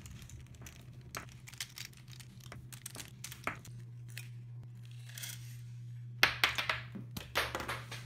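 Plastic pieces of a stickered 3x3 speed cube clicking and rattling as the cube is pried apart on a paper towel, with a louder run of clattering clicks about six seconds in as a piece falls. A steady low hum runs underneath.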